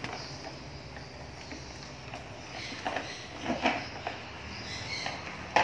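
Plastic toy truck pulled along a tile floor, its wheels rolling and scraping, with a few short knocks in the middle and a sharp click near the end.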